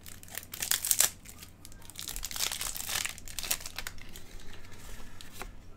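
Wrapping being crinkled and torn off a deck of playing cards, in irregular crackly bursts, loudest about a second in and again in the middle.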